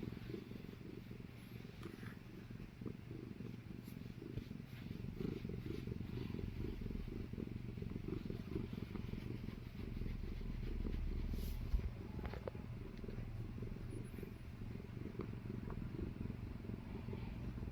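Domestic cat purring continuously in a low, steady rhythm, with one brief click near the middle.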